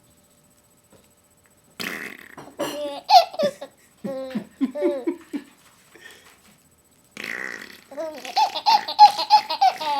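A man makes a raspberry-style fart noise with his mouth and a baby laughs in reply, twice: once about two seconds in and again about seven seconds in. The second laugh is a quick run of high giggles, about five a second.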